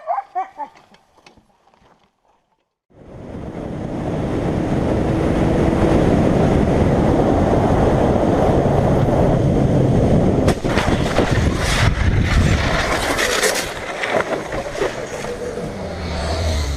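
After a brief silence, a motor vehicle's engine running under heavy wind rush starts about three seconds in and stays loud, with several sharp knocks or clatters a few seconds before the end.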